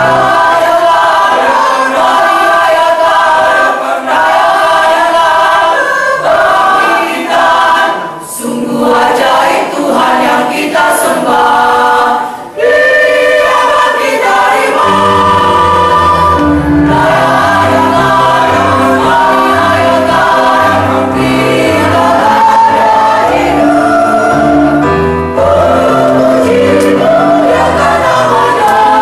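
Mixed church choir of men and women singing an Indonesian Easter song. A low bass accompaniment drops out near the start, leaving the voices almost alone, and comes back in about halfway.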